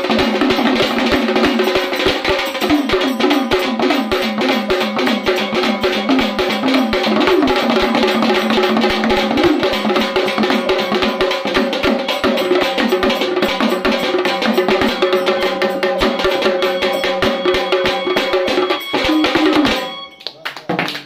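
Sambal, the Maharashtrian pair of stick-beaten drums, played in a fast, unbroken stream of strokes. The playing stops abruptly about a second before the end.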